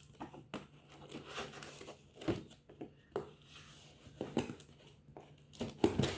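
A gift package being opened by hand: irregular crinkling and tearing of packaging with scattered handling knocks, busier near the end.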